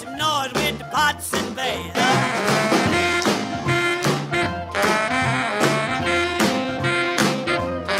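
Upbeat background music with a steady beat, its melody sliding up and down in the first two seconds.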